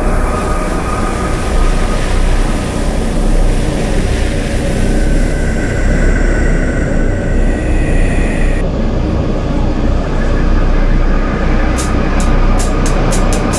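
Film soundtrack drone: a loud, dense, steady low rumble with held tones. Near the end a run of sharp ticks comes in, faster and faster.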